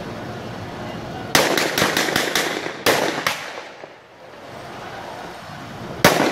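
Gunshots echoing: a rapid volley of about seven shots in little over a second, two more shots half a second apart, then one loud shot near the end.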